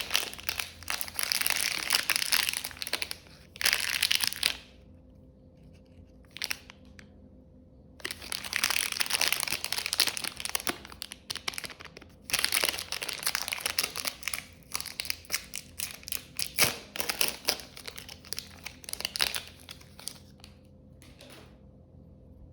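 Dense crinkling and crumpling noise in three long stretches separated by short quiet gaps, stopping about a second before the end.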